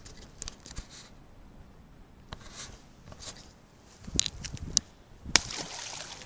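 Scattered small clicks, taps and rustles of close handling, busiest about four seconds in, with one sharp click shortly after.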